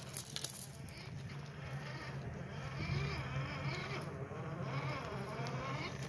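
Axial SCX10 II Deadbolt RC crawler's electric motor and geared drivetrain whining as it crawls over rocks, the pitch rising and falling with the throttle. A few sharp clicks come near the start.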